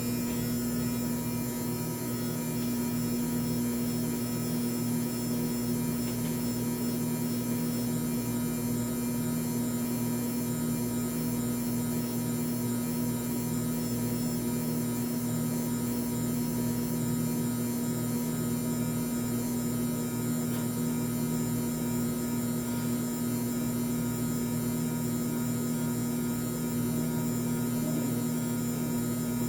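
Mini washing machine's electric motor running with a steady, unchanging hum.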